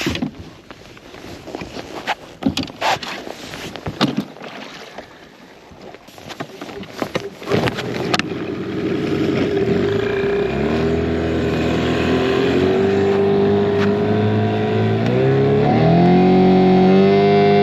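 Knocks and clatter of gear being handled in a boat, then an old Mercury outboard motor starting about halfway through and running, its pitch stepping up several times as it is throttled up. The motor had sat unused a long time and runs poorly; the owner says it needs a carburettor cleaning.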